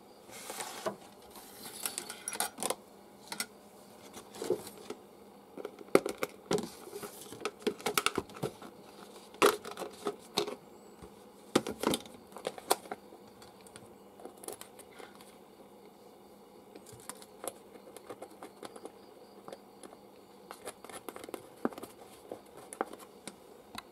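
Hands handling a red plastic basin with a blender motor mounted on it, along with small screws and wire. The result is irregular clicks, knocks and rustles, busier and louder in the first half and sparser later.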